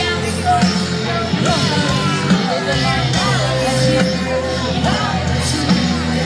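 Live rock band playing on an outdoor stage, with a woman singing over a steady bass and drums, heard from within the crowd.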